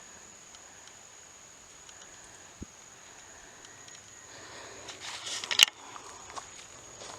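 Footsteps on a hiking trail, quiet at first, then a burst of scuffing about four to six seconds in that ends in a sharp scrape. A steady high-pitched insect buzz runs underneath.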